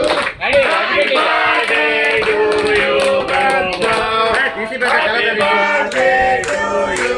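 Several voices singing over music.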